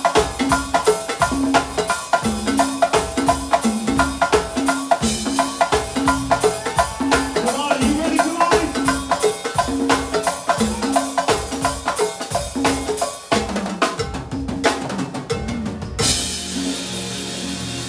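Live band music led by a drum kit and percussion playing a fast, steady groove over a repeating bass line; the busy drumming breaks off about fourteen seconds in and gives way to a steadier, more even sound near the end.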